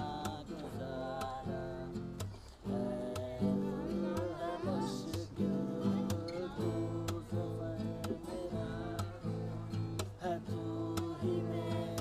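A man singing while strumming chords on an acoustic guitar, the chords changing every second or so.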